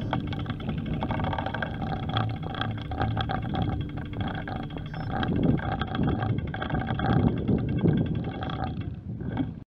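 Riding noise from a camera moving along a mountain road, with gusts of wind rumbling on the microphone from about halfway in over a steady hum. The sound cuts off suddenly near the end.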